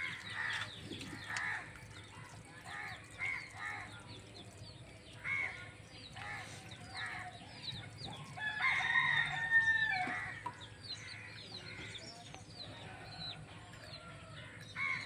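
Chickens clucking: a string of short calls, louder and busier about eight to ten seconds in.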